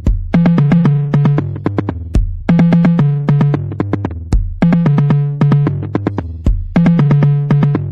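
Electronic, 80s-style drum kit sounds from Addictive Drums software: a steady beat whose phrase repeats about every two seconds, with deep kick hits and pitched, synth-like tom tones.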